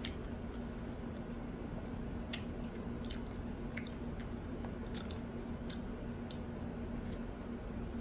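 A person chewing crunchy food with the mouth close to the microphone, sharp crunches coming about every second, unevenly spaced.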